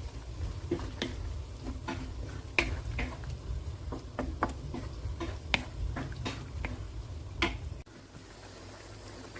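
Kitchen clatter: a series of light clicks and knocks from cooking utensils and cookware over a steady low rumble. The rumble cuts off about eight seconds in, leaving a soft hiss.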